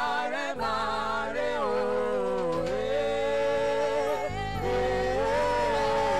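Live gospel praise singing: a lead vocalist holding long notes, joined by backing singers, over a steady instrumental backing. The melody slides down about two and a half seconds in and climbs again after about four seconds.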